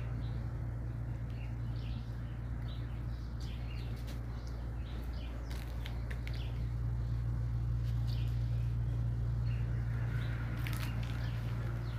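A steady low hum, with faint scattered bird chirps and a few sharp clicks near the end.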